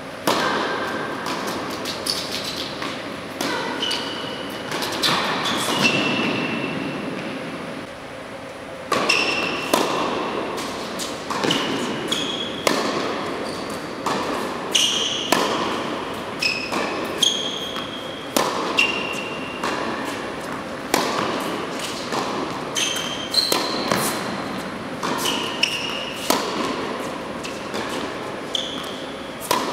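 Tennis rally on an indoor hard court: repeated sharp pops of racquets striking the ball and the ball bouncing, echoing in a large hall, with short high-pitched squeaks of sneakers on the court. There is a brief lull about eight seconds in before play resumes.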